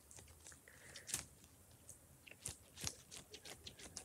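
A homemade water-filled squishy fidget being squeezed and handled, giving a scatter of small sticky, squelchy clicks and crackles.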